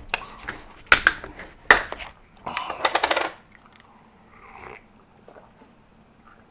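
Plastic bottle of carrot juice being handled and opened: sharp clicks about a second in and again shortly after, a stretch of crackling, then only faint sounds as the juice is drunk.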